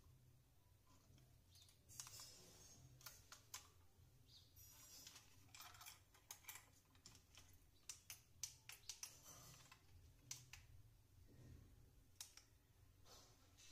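Faint, irregular clicks and taps from a handheld portable digital hanging scale being handled: its plastic buttons pressed and its metal hook tugged.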